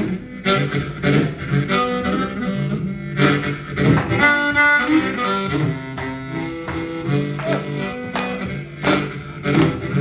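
Blues band instrumental passage: amplified harmonica playing the lead with bent notes over electric guitar and a steady beat.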